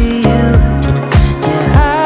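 Background pop/R&B music with a steady beat, drums, and a sung vocal line near the end.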